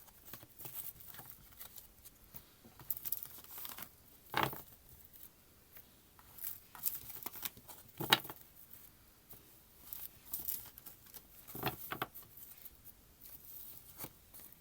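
Tarot cards being handled and shuffled: intermittent papery rustling with a few sharper taps, about four, eight and twelve seconds in.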